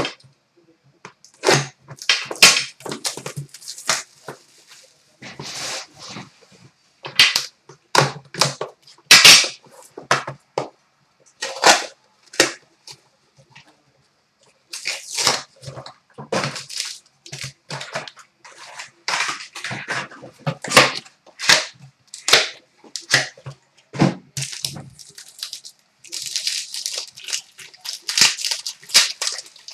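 Shrink-wrap and cardboard of a hockey card box being torn off and opened by hand, then a foil pack handled and cut with scissors: irregular crinkling, rustling and tearing in short bursts, with brief pauses between them.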